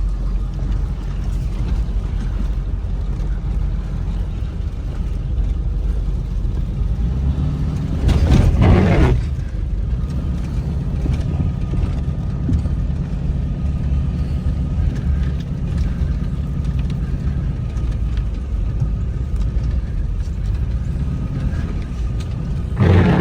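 Ford Excursion running slowly on a snow-covered road, a steady low engine and tyre rumble, with a brief louder rush of noise about eight seconds in and again at the end.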